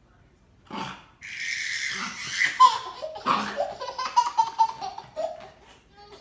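A baby laughing hard, building into a fast run of short laughs around the middle.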